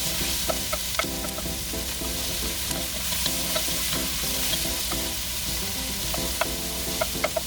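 Garlic, onions and tomatoes sautéing in oil in a pan, sizzling steadily while being stirred, with a utensil clicking against the pan now and then, several times near the end.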